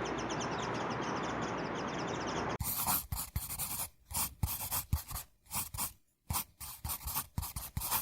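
Background music dying away, then from about two and a half seconds in, irregular short scratching and scraping noises with brief silent gaps between them.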